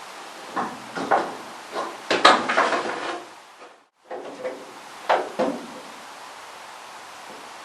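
Irregular knocks, clunks and rubbing of a battery cable being fed through a car's steel body shell, the loudest cluster about two seconds in, with a few more knocks after a brief gap of silence.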